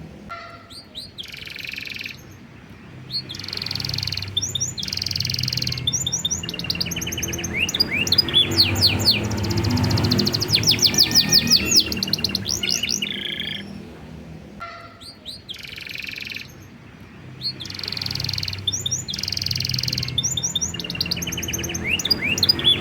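Domestic canary singing a long, varied song in bursts, with fast trills, sweeping rolls and held high notes, and short pauses about two seconds in and again near the middle.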